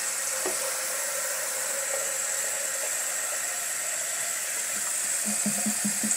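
Kitchen sink tap running in a steady hiss, filling a plastic jug with water.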